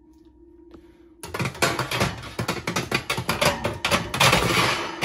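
Metal wire oven rack rattling and clattering as it is slid onto the oven's side rails: a dense run of metallic clicks and scrapes starting a little over a second in, ending with a sharper knock.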